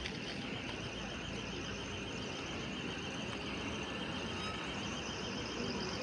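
Street traffic noise, with cars passing on the road, and a faint high wavering tone running through it.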